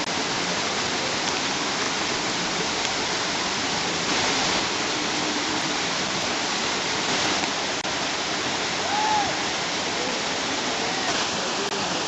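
Steady rushing of a waterfall: an even, unbroken wash of falling-water noise.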